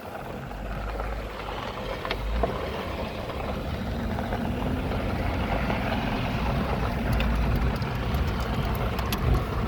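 A vehicle driving over rough ground off-road: a steady low rumble with scattered knocks and rattles, building over the first couple of seconds.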